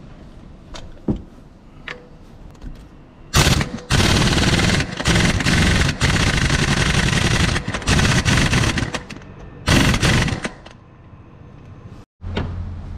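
Impact wrench hammering on the crankshaft pulley bolt of a Honda K20A4 engine, in about six short bursts starting about three seconds in, after a few light clicks of the socket being fitted.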